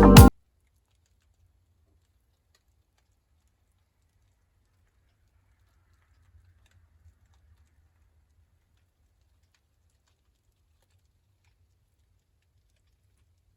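Background music cuts off abruptly just after the start, then near silence: a faint low hum with two faint ticks around the middle.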